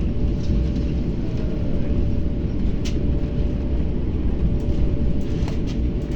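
Passenger train running steadily: a continuous low rumble with a thin, steady whine above it and a single click about three seconds in.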